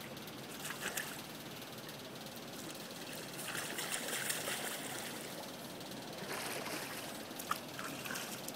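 Swimming-pool water lapping and splashing as a small child wades on the pool steps, with louder splashes around the middle and in the second half.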